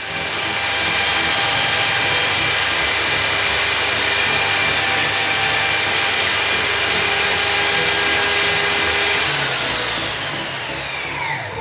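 Einhell 2000 W table saw with a 250 mm blade running at full speed with a steady whine. About nine seconds in it is switched off and the whine falls in pitch as the blade winds down.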